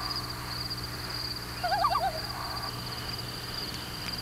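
Common loon giving a short, quavering tremolo call about one and a half seconds in, a dubbed-in sound effect. Under it runs a steady high-pitched trill.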